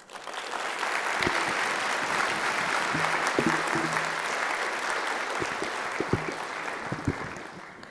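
Audience applauding, building up quickly at the start, holding steady, and tapering off near the end.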